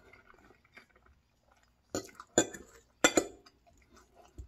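Metal fork clinking against a plate a few times, sharp short clicks starting about two seconds in, as food is picked up from the plate.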